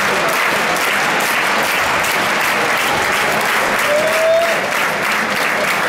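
Arena audience applauding between points of a badminton doubles match, a dense, steady patter of many hands clapping. About four seconds in, a brief single call rises above the clapping.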